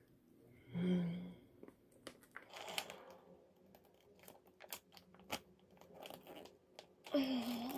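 Crinkling and crackling of a foil mask sachet being squeezed and handled, a run of sharp crackles. A brief vocal sound comes about a second in and another near the end.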